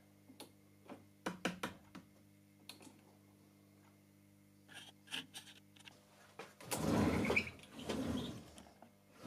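Light clicks and knocks of metal parts, then, about seven seconds in, a second or two of faint rumbling, scraping noise: the homemade table saw's rip fence sliding along its linear rail.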